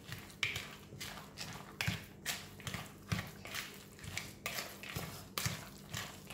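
A spatula stirring and folding wet carrot cake batter (grated carrot in oil, sugar and egg) in a mixing bowl: a wet scraping stroke about twice a second.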